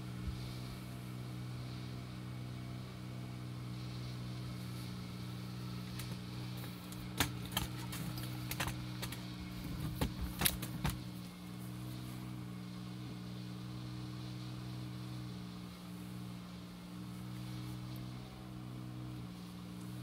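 A steady low mechanical hum, with a cluster of sharp clicks and knocks about seven to eleven seconds in.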